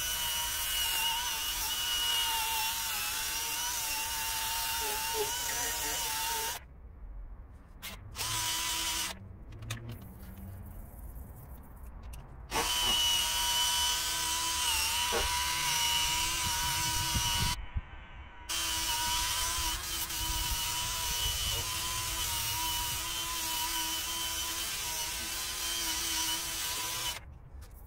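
Handheld power drill running in four long bursts with short pauses between, a steady motor whine with a scratchy hiss over it; it stops near the end.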